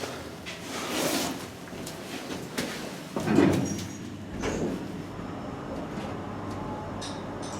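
Sliding doors of a 1971 hydraulic elevator moving, with a couple of knocks in the first few seconds. About four seconds in, a steady low hum starts as the lift's drive runs.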